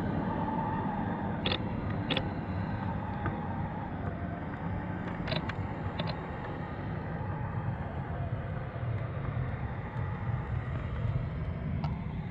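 Steady low rumble of the fishing boat's engine heard underwater, with a few sharp clicks in the first half.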